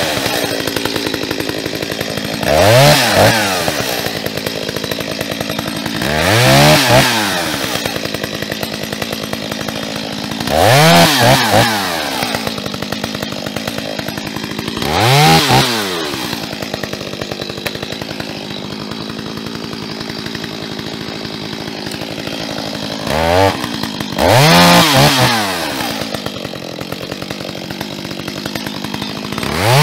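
Two-stroke chainsaw idling and being revved up and back down about six times, each rev rising and falling in pitch over a second or so. There is a longer stretch of plain idle in the middle.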